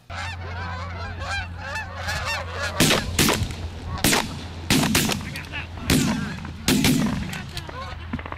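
A flock of geese honking continuously as they come in, then a volley of shotgun shots, about six, fired from about three seconds in while the honking carries on.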